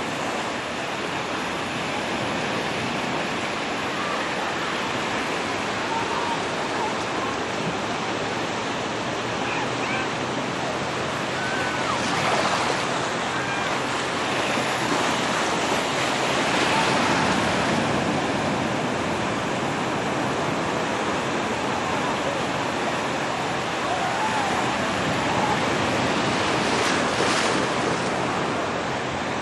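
Ocean surf breaking and washing onto a sandy beach: a steady rush of noise that swells several times as waves break, loudest around the middle and again near the end.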